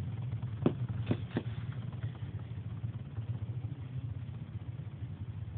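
Cosmic Pegasus W105R2F Beyblade spinning on its rubber flat tip on a plastic stadium floor: a steady low whir, with a few light clicks in the first second and a half. The top is late in its spin and winding down toward a stop.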